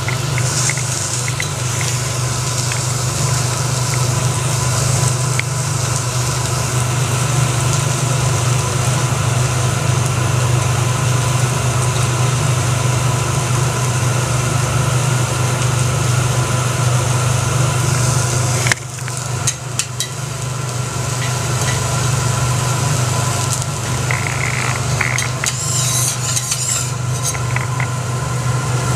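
Food sizzling on a hot teppanyaki steel griddle, with a metal spatula scraping and tapping on the plate. A steady low hum runs underneath.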